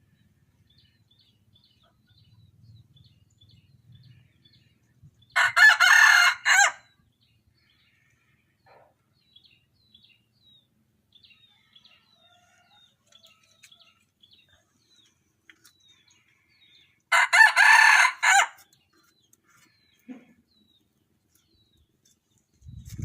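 Wild junglefowl rooster crowing twice, each crow short and broken into a few notes, about eleven seconds apart. Faint chirps of small birds come in between.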